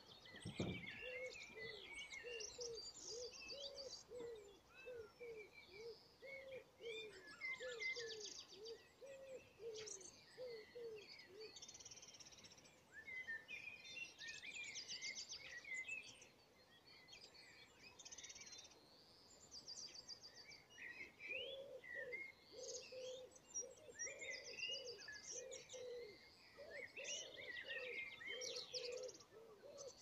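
Several songbirds singing at once, a mix of high chirps, whistled phrases and fast trills. Under them runs a steady series of low repeated notes at about two a second, stopping for a stretch in the middle. There is a brief low thump just under a second in.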